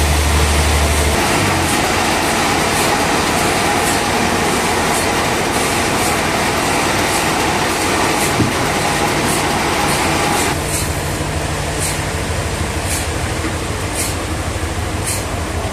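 Sawmill machinery running with a steady mechanical noise. A deep hum cuts off about a second in and the noise drops a step near the end, with regular short, high ticks repeating throughout.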